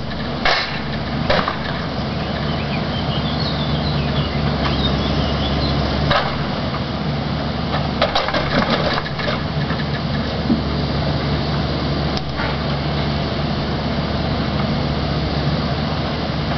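John Deere forwarder's diesel engine running steadily, with several sharp knocks and clatters from the machine and its load of logs.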